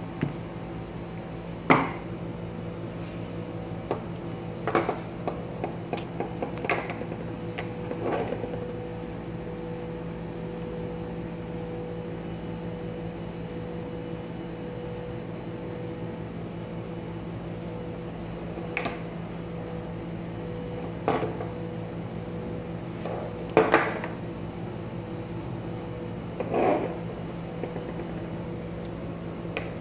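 Chrome-plated metal valve parts, a concealed gate valve head and its extension sleeve, being handled and set down on a table: about a dozen short clinks and knocks, a cluster in the first eight seconds and more from about 19 s on, over a steady background hum.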